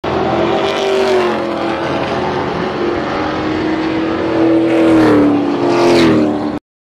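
Race truck engine running at speed on an oval track, its note sliding slowly down and back up, with louder surges about five and six seconds in. It cuts off suddenly near the end.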